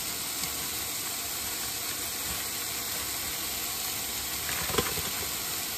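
Ground beef sizzling steadily in a pot on an induction cooktop, with one short crackle near the end.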